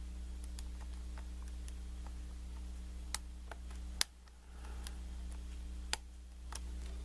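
Small metallic clicks from a pick working the pins of a Kwikset knob cylinder lock, scattered and irregular, with sharper clicks about three, four and six seconds in. A steady low hum runs underneath.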